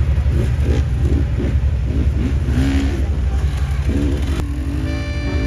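An off-road vehicle's engine running with a steady low rumble while a Jeep is winched up a rock slope, with voices calling over it. Music comes in near the end.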